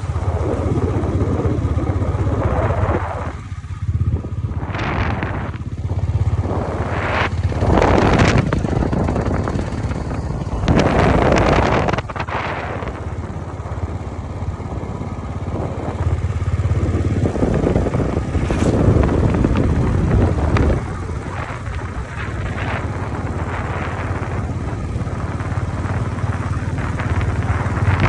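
Motorcycle engine running steadily while riding along a road, with several louder rushes of noise coming and going.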